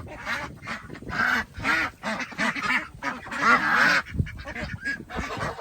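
A flock of farm waterfowl calling over one another: many short, overlapping calls.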